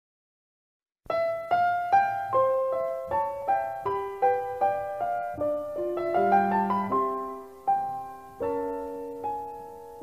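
Background piano music: a gentle melody of single struck notes that ring and fade, starting about a second in.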